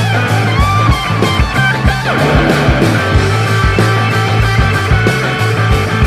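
Rock music with electric guitar over a steady drum beat.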